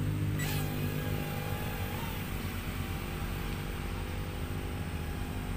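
KY902 mini quadcopter's small motors and propellers whirring steadily, slowly getting quieter, with a brief click about half a second in.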